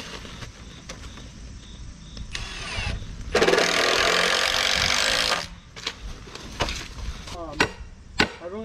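A cordless power drill runs in one steady burst of about two seconds, fastening the wooden form boards for a concrete pad. A few sharp knocks follow near the end.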